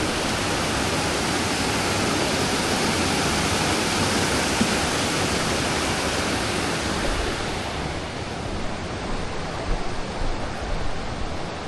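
Creek water rushing over rocks in a steady hiss, growing fainter and duller from about eight seconds in.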